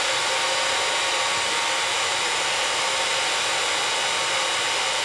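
Hot-air rework gun blowing a steady hiss of hot air onto a phone mainboard, heating a plastic battery connector to melt its solder, its fan on the lowest airflow setting.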